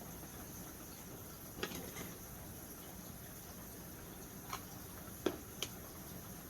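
A few light, sharp taps and clicks of small craft supplies being handled and set down on a work table, over a faint steady high-pitched hiss.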